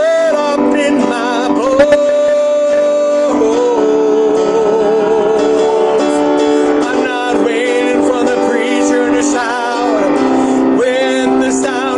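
Male voice singing a slow worship song, holding long notes with vibrato over instrumental accompaniment.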